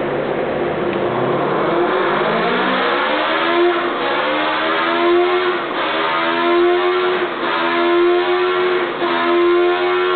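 Kawasaki Z1000's inline-four engine, breathing through a stainless steel aftermarket exhaust, revving hard on a dyno: the pitch climbs steadily for about three seconds, then is held at high revs with brief dips every second or two.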